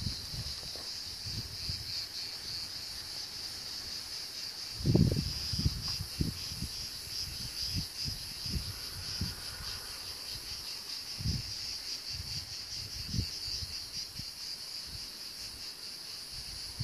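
A steady chorus of insects chirring in a high, finely pulsing band. A few short low thumps come through, the loudest about five seconds in.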